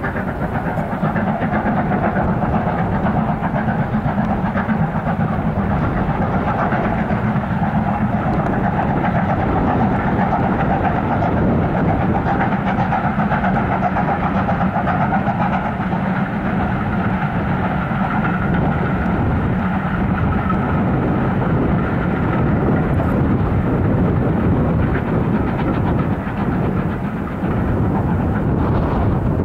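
LMS Stanier Black Five 4-6-0 No. 45231 Sherwood Forester working a passenger train past at a distance. Its exhaust and the rumble of the train are mixed with heavy wind noise on the microphone.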